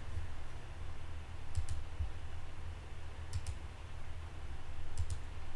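Three pairs of short, sharp clicks, each pair a quick double click, spaced about a second and a half apart, over a low steady hum.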